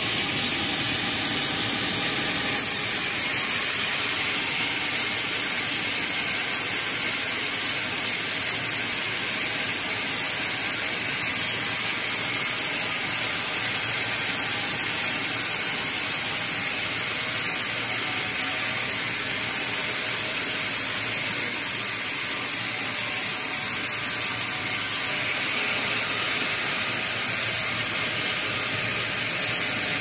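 Large log band saw cutting lengthwise through a sugi (Japanese cedar) log on its carriage: a steady, loud, high hiss of the blade in the wood over the machine running. The hiss grows stronger a couple of seconds in and eases slightly near the end.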